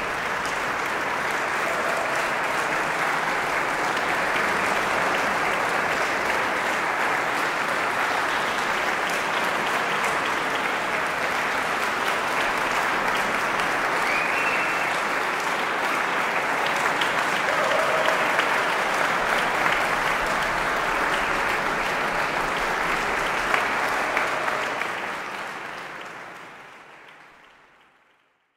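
Audience applauding steadily in a concert hall, fading out near the end.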